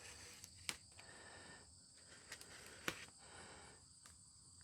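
Near silence with a faint steady background hiss, broken by a few short faint clicks or taps, the clearest about a second in and near three seconds in.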